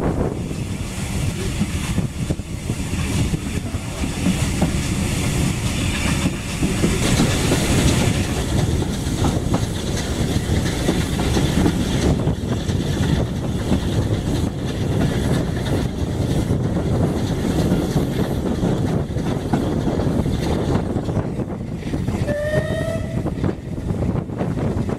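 Steam-hauled heritage passenger train running, with a steady rumble and the wheels clicking over the rail joints. A short whistle note sounds once near the end.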